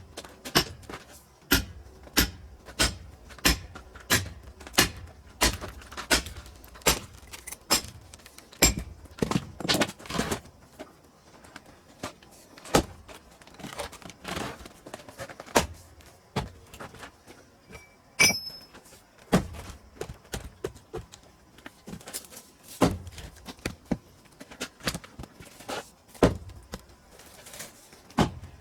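A long run of sharp knocks and clunks from working split pine firewood. They come steadily, about one and a half a second, for the first several seconds, then irregularly. About eighteen seconds in there is a single metallic ring.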